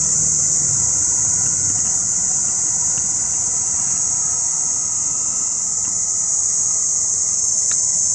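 A steady, high-pitched chorus of crickets at night, with a low rumble fading out in the first second.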